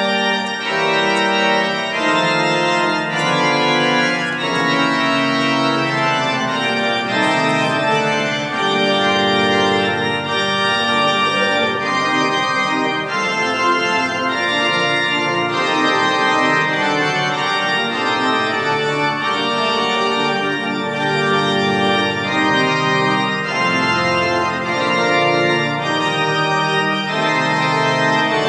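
Tornaghi pipe organ playing full chords, many pipes sounding together; the chords change quickly over the first several seconds and are then held longer.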